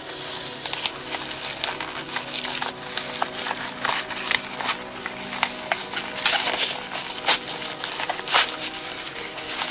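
Sealed packaging being opened by hand: rustling and crinkling with several louder sharp tears about six to eight and a half seconds in.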